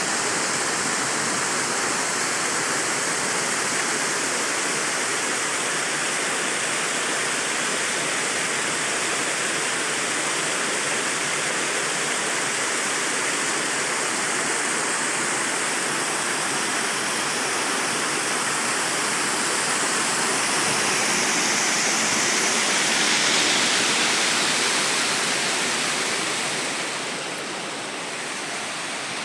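Small creek waterfall cascading over rocks into a pool: a steady rush of water, swelling a little past the middle and easing off somewhat near the end.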